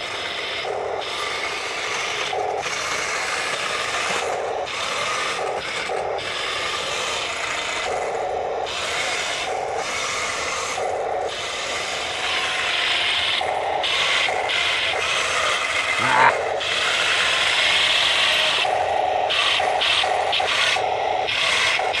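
A remote-control Tiger I model tank's electric drive motors and gearboxes run with a continuous rasping, grinding whir as its tracks work through wet grass. The sound pulses unevenly and there is a short squeak about sixteen seconds in. The owner thinks one side's wheel is missing something, and the tank is not driving properly.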